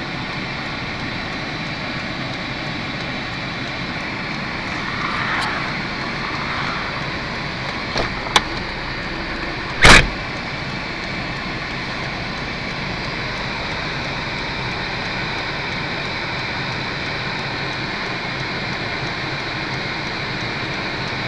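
Steady hum inside a stopped car, with two light clicks and then one loud, short thump about ten seconds in.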